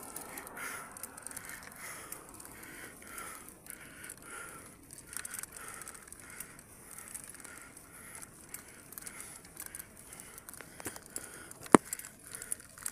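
Bicycle being ridden up a climb on asphalt: steady rolling and rattle noise with soft rhythmic breathing from the rider, and one sharp knock near the end as the handlebar-mounted camera is jolted.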